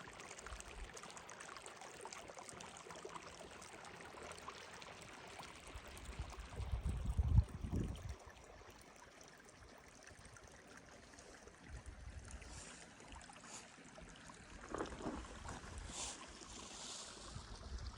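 Water flowing steadily in a continuous rushing hiss, like a stream. A brief low rumble comes about seven seconds in.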